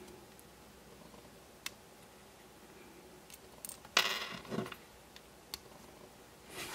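Small plastic gears and the motor bogie of a Hornby model locomotive being handled and fitted together: a few faint sharp clicks, with one brief louder scrape or rustle about four seconds in.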